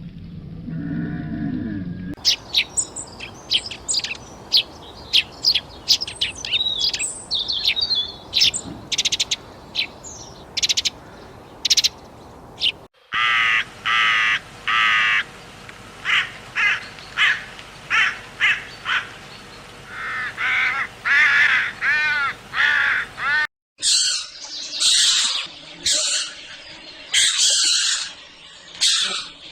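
A succession of bird calls: high, quick chirps and clicks, then a series of repeated, harsh pitched calls, then rougher high calls, each block cut off abruptly.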